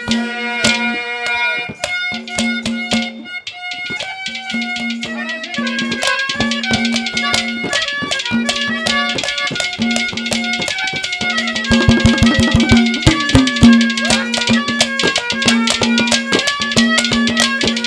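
Instrumental interlude of Haryanvi ragni folk music: a melody instrument plays stepwise phrases over a held low drone, with a busy hand-drum rhythm. About twelve seconds in the drumming gets louder and denser.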